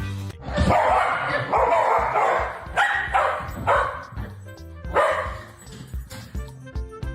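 A dog barking over background music: a rapid run of loud barks, then a few more spaced out, the last about five seconds in.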